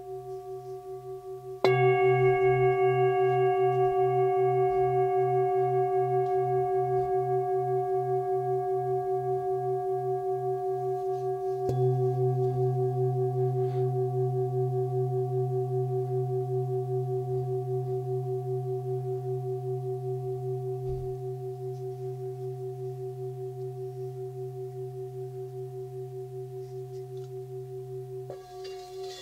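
Hand-forged 25 cm singing bowl tuned to C, about 130 Hz, held on the palm and struck with a mallet about two seconds in and again about twelve seconds in, each time ringing on with several steady overtones and a slow pulsing beat as it slowly fades. Near the end the mallet meets the bowl once more.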